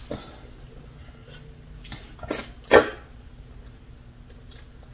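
Two short, sharp breathy bursts about half a second apart, a little over two seconds in, from a person chewing a mouthful of food, over a faint steady hum.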